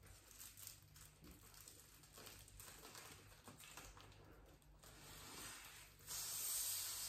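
Mylar foil balloon crinkling softly as it is handled, then, about six seconds in, a steady hiss of air being blown into it through a straw in its valve.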